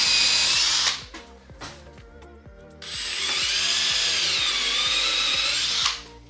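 Cordless drill running under load twice, countersinking holes through a carpet-covered plywood panel: the first run stops about a second in, and the second starts about three seconds in and lasts about three seconds, its pitch dipping as the bit bites.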